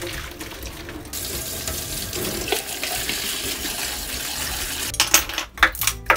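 Boiled glutinous rice balls and their water poured into a mesh strainer, then a kitchen tap running a steady stream of cold water over them in a glass bowl in a stainless steel sink. Near the end, several sharp clinks as ice cubes are dropped into the glass bowl.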